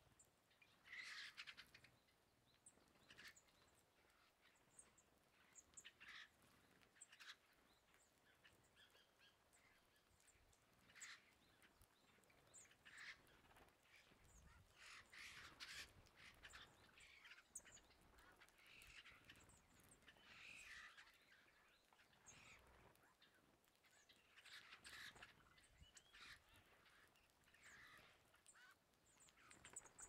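A flock of small wild birds giving short, faint calls and chirps, scattered through and busiest in the middle, as they feed on the ground.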